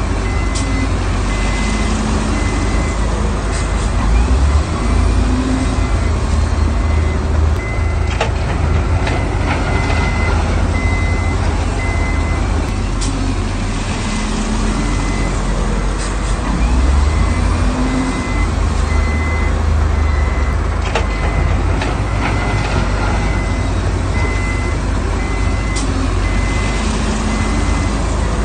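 Heavy earthmoving machinery, diesel engines running under load, with a reversing alarm beeping at a steady pace and occasional sharp metallic clanks.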